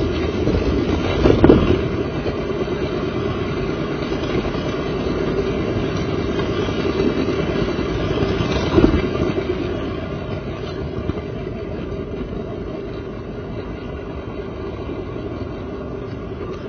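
HO-scale model train rolling along the track, heard from a camera riding on the train: a steady rumbling whir of wheels and motor, with two louder clacks, about a second and a half in and again near nine seconds, and a little quieter in the second half.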